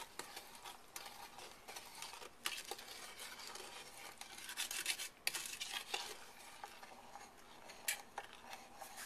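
Wooden spoon stirring a sugar, cocoa, butter and evaporated milk mixture in a stainless steel saucepan: a soft, quiet swishing scrape with a few light knocks of the spoon against the pan.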